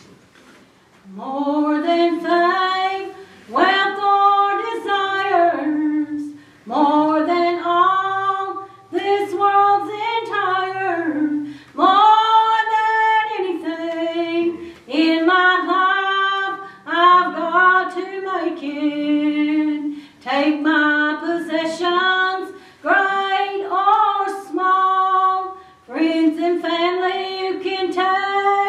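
A woman sings a slow song solo in sung phrases with short breaths between them, starting about a second in. A soft acoustic guitar accompanies her.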